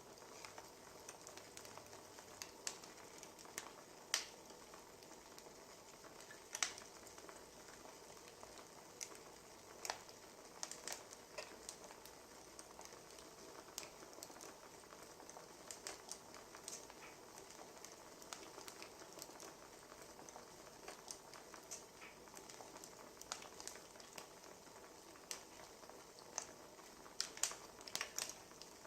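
Wood fire crackling: irregular snaps and pops over a soft steady hiss, with a few louder pops about four, six and ten seconds in and a quick cluster near the end.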